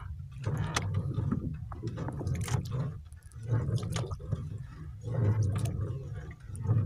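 Water splashing and dripping at the side of a small boat as a fishing longline is worked by hand over the gunwale, with sharp knocks and clicks and a low rumble that swells and fades every second or so.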